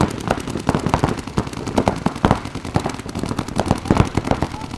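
Paintball markers firing in rapid, continuous volleys, several sharp shots a second overlapping one another.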